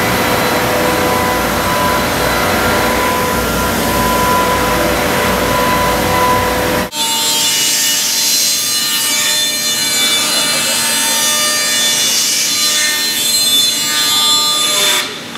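CNC router spindle and cutter milling a block, a dense cutting noise with a steady whine. About seven seconds in it changes abruptly to a 5-axis router head machining a part, which sounds higher-pitched with several steady whining tones.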